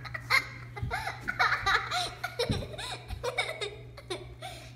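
A young girl laughing and giggling in quick repeated bursts, over a steady low hum.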